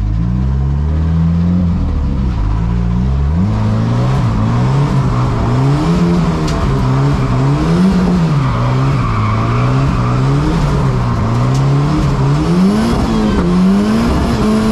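Big-turbo Volvo wagon's engine, heard from inside the cabin, revving up and dropping back over and over, its pitch climbing and falling about every second or two as the car is driven hard.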